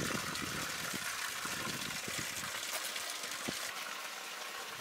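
Running water, a steady splashing hiss with a few faint knocks.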